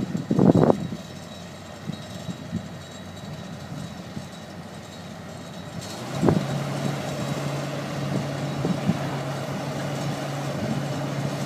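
Heavy machine's engine running, with a knock about six seconds in, after which it settles into a louder, steady low drone.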